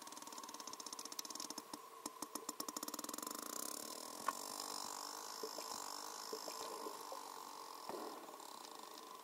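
Young sperm whale creaking underwater: a rapid train of echolocation clicks that speeds up into a dense buzz from about one to three and a half seconds in, then thins to a few single clicks.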